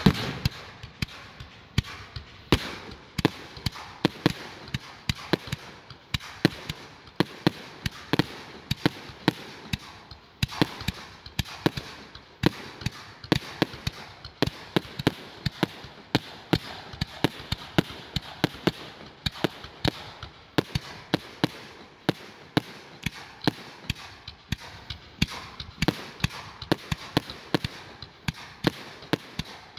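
Aerial fireworks going off in quick succession: a dense string of sharp bangs and cracks, several a second, with a loud bang right at the start.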